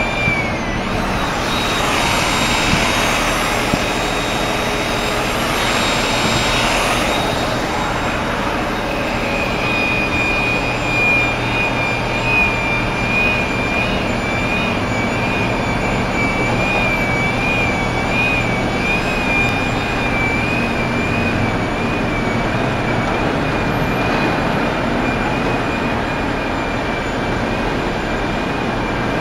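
Street traffic: vans and lorries idling and creeping along a narrow, congested street, a steady hum of engines and road noise. A louder passing swell comes in the first several seconds, and a thin, slightly wavering high whine joins about nine seconds in and holds on.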